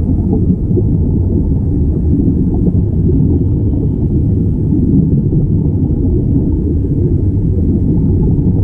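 Steady, loud, muffled underwater rumble of water and streaming air bubbles, picked up through a submerged camera's waterproof housing.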